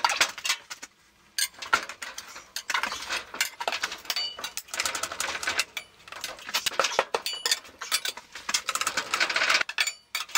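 Steel tire irons clinking and scraping against the wheel rim as the last bead of a motorcycle tire is levered on: a dense run of metal clicks and scrapes, briefly quiet about a second in.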